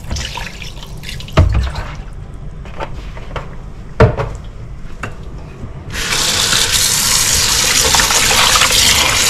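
Vinegar poured over salmon fillets in a stainless steel bowl, with two sharp knocks. About six seconds in, the kitchen tap opens and water runs steadily into the bowl as the fillets are rinsed.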